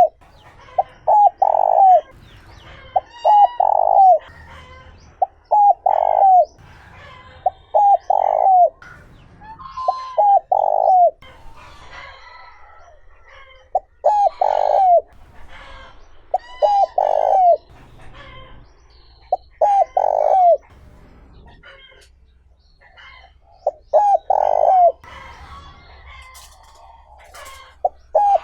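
Spotted dove cooing: phrases of a few short notes leading into a longer falling coo, repeated every two to four seconds. Fainter chirps of other small birds sound between the phrases.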